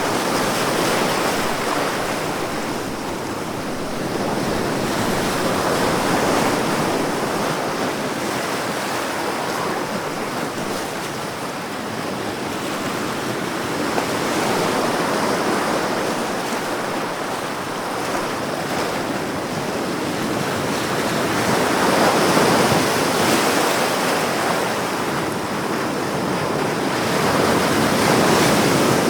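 Ocean waves: a steady rush of surf that swells and eases about every seven or eight seconds.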